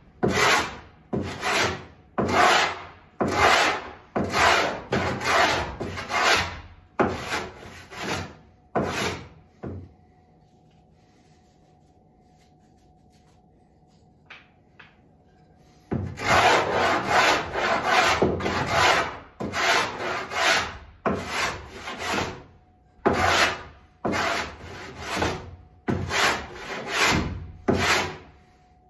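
Hand plane shaving the bevel of a scarf joint on a plywood panel: a run of quick rasping push strokes, about three every two seconds, a pause of about six seconds near the middle, then another run of strokes.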